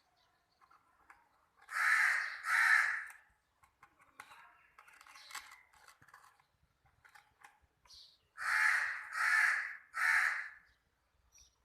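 Crow cawing: two harsh caws, then three more caws about six seconds later.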